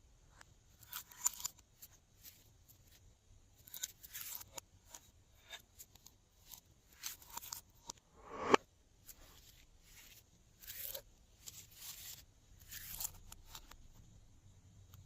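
Glossy slime being squished and stretched by hand, giving irregular bursts of sticky clicks and crackles, with one louder pop about eight and a half seconds in.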